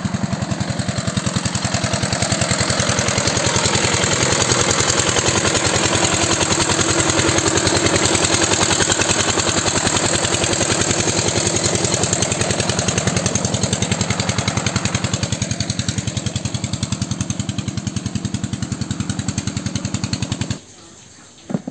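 Single-cylinder diesel engine of a two-wheel walk-behind power tiller running under load as it ploughs a flooded paddy field: a rapid, even thudding that grows louder over the first few seconds and then eases off a little. It cuts off suddenly near the end.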